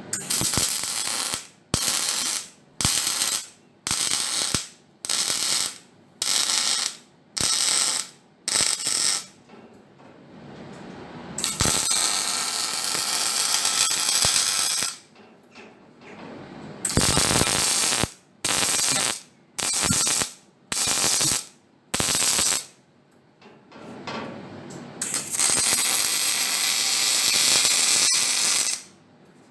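MIG welder arc crackling as ramp seams are welded on a steel recovery body: a string of short stitch-weld bursts, each about half a second to a second, with two longer continuous runs of several seconds, one in the middle and one near the end.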